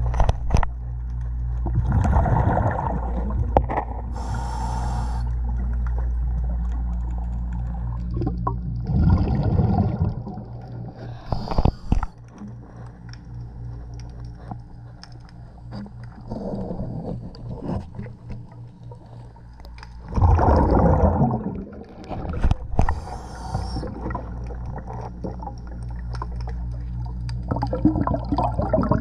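Underwater sound of a diver breathing through a regulator: bursts of exhaled bubbles every few seconds, with a sharp hiss of inhalation twice, over a steady low hum.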